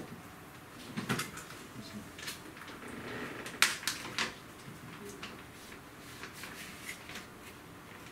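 Scattered clicks and knocks from handling an HP Spectre x360 convertible laptop, with a short rustle just before the loudest click about three and a half seconds in.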